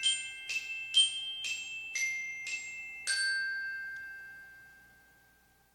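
Short jingle of bright, glockenspiel-like struck notes, about two a second. The last note, about three seconds in, rings out and fades away over the next two seconds.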